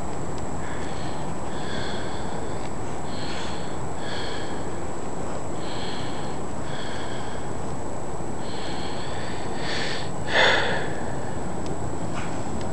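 Young dog sniffing at bare soil with its nose to the ground: short sniffs about once a second over a steady background hiss, with one louder burst about ten seconds in.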